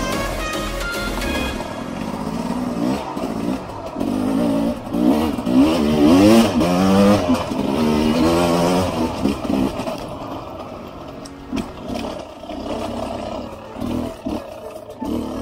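Sherco 250 SE-R two-stroke enduro motorcycle engine revving up and down repeatedly as the bike is ridden, loudest around the middle, with music fading out in the first second or two.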